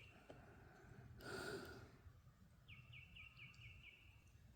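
Quiet outdoor background with a soft exhale a little over a second in, then a small bird's quick run of about six short, falling high chirps near the end.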